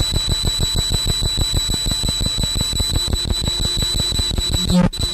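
Experimental noise music: a fast low pulsing of about seven or eight throbs a second under a steady high-pitched whine and hiss. Near the end it cuts out briefly and a low steady drone comes in.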